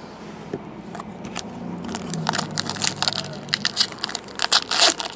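Crinkling and crackling of a plastic trading-card pack wrapper being handled, sparse at first and then growing denser and louder toward the end.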